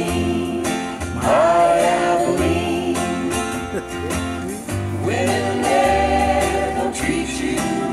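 A man singing a country song into a handheld microphone over a backing track with guitar and bass.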